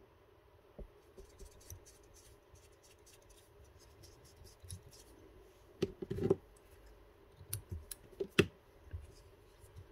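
Quiet scratching of fly-tying thread and a bobbin being handled at the hook shank as the broken thread is restarted. A few sharp clicks come just before 6 s and at about 8.4 s.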